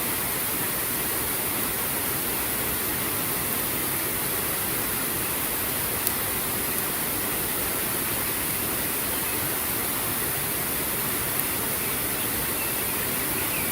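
Steady rushing of flowing water, an even unbroken wash of noise, with a single sharp click about six seconds in.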